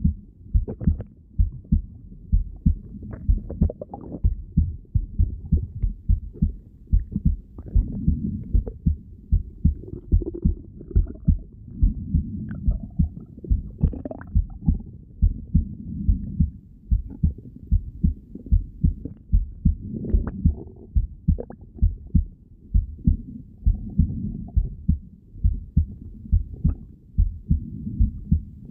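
A heartbeat heard through a stethoscope: steady, evenly spaced low thumps. Now and then soft gurgles of the stomach or bowel come through.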